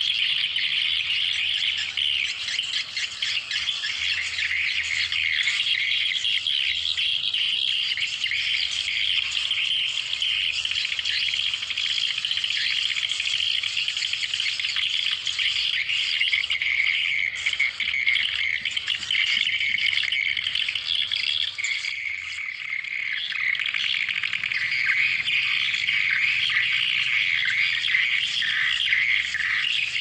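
Swiftlet calls: a dense, unbroken twittering chatter, the lure call (suara pikat) used to draw swiftlets to a nesting house.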